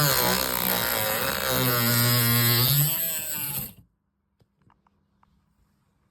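Handheld power tool running under load, its pitch wavering, then switched off and winding down just under four seconds in; a few faint clicks follow.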